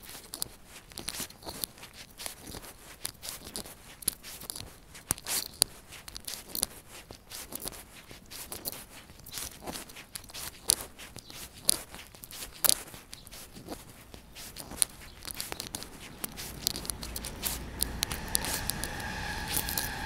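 Footsteps of a person walking on a paved sidewalk, an irregular run of short steps and scuffs. Near the end a steady high-pitched hum and a low rumble come in and grow louder.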